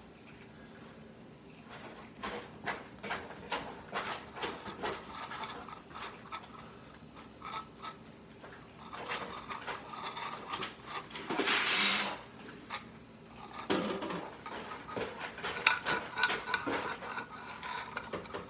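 Many cats eating from metal and plastic bowls on a tile floor: irregular clicks, clinks and scrapes of bowls pushed on the tiles as they eat, with a brief rushing noise near the middle.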